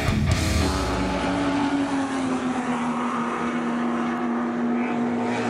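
Racing car engine running at steady revs on a circuit, one even pitch held for several seconds.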